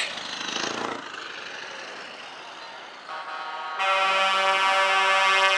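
Truck air horn gives one long, steady blast. It starts about three seconds in and gets much louder about a second later.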